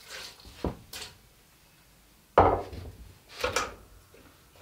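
Cookware knocking and clattering on an electric stove as a pot of onions is set up to cook: a few separate short knocks, the loudest a sudden clatter about halfway through.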